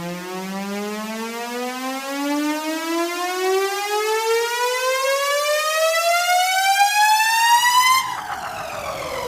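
A buzzy synthesized tone rising steadily in pitch like a siren winding up, for about eight seconds, then breaking off near the end into a falling sweep.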